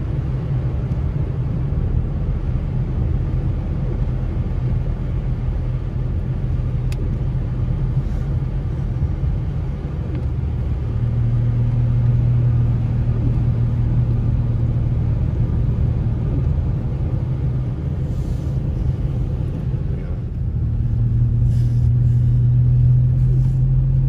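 Car driving: a steady low engine and road rumble. The engine hum grows stronger about halfway through and again near the end.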